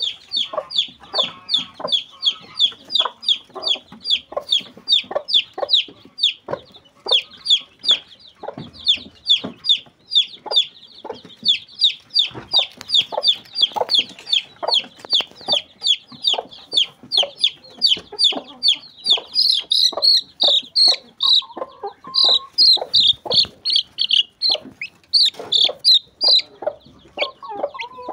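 Chicks peeping continuously in short, high, falling notes, about two to three a second, with hens clucking lower beneath them.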